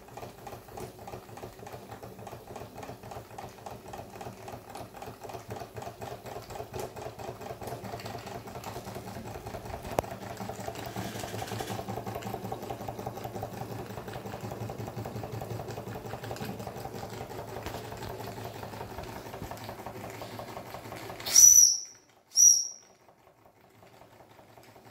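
Doll vertical toy steam engine running, its piston and valve gear beating in a rapid, even chuff that quickens past the middle. Near the end the running sound stops, and the boiler's steam whistle gives two short, high toots.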